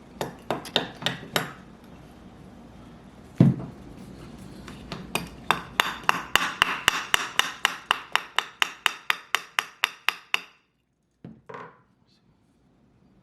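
Small hammer tapping a punch to drive the bolt-catch roll pin into an AR-15 lower receiver. A quick run of light taps comes first, then one harder knock, then a steady series of about four taps a second that stops suddenly.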